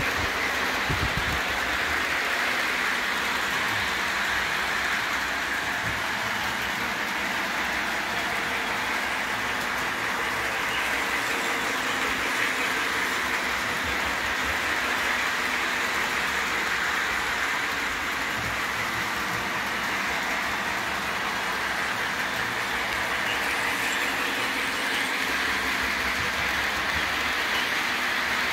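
Lionel/MTH O gauge model freight train running around three-rail track: a steady whirr of metal wheels rolling on the rails and the locomotive's motor.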